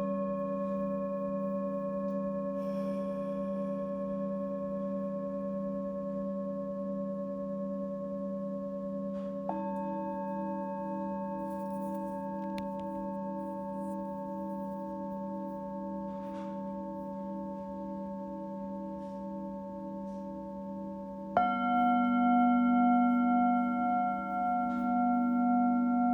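Singing bowls ringing in long sustained tones, several layered at once with a slow wavering pulse. A new bowl is struck about ten seconds in and another near the end, each adding a fresh tone that rings on, the last one louder.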